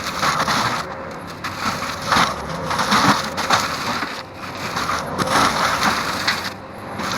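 Forestry mulcher head on a Bobcat T770 tracked loader grinding wood, a loud crushing and splintering noise that swells and eases about every second.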